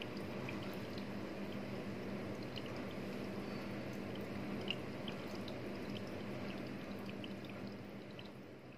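Aquarium water circulating through a betta tank: a steady trickling and dripping with small plinks, over a low steady hum. It eases off near the end.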